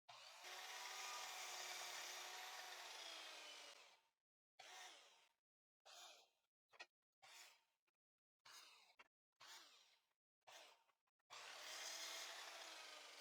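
Faint miter saw motor whine, heard twice: once for about three seconds, tailing off as the blade spins down, and again briefly near the end, with near silence in between.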